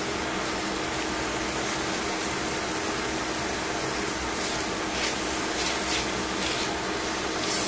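Steady hiss of chicken cooking in a stainless steel pan, with a steady low hum under it and a few light clicks of tongs turning the pieces about five to seven seconds in.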